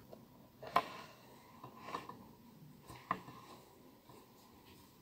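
Faint handling sounds: a few soft, brief clicks and rubs as fingers work a sewing needle and thread through a small needle-lace motif.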